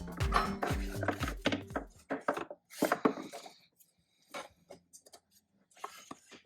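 Background music with a steady beat ends about two seconds in. Then come a handful of sharp plastic clicks and knocks as a 3D-printed switch panel is handled and pushed into a dash trim opening, the loudest about a second later.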